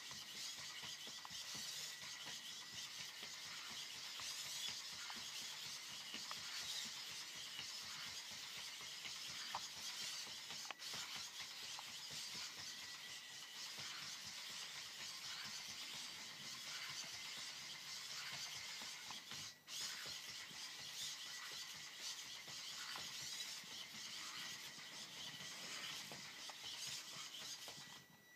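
Dynamixel AX-12 servo motors of a six-legged walking robot whining as the legs move, a faint high whir that wavers with the gait, with a thin steady high tone under it.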